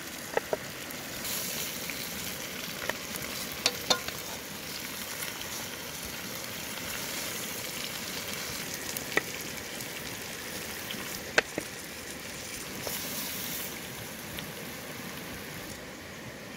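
Wooden spoon stirring and turning chicken feet and cabbage in an aluminium pot: wet scraping and mixing over a steady hiss, with a few sharp knocks of the spoon against the pot, the loudest a little past the middle.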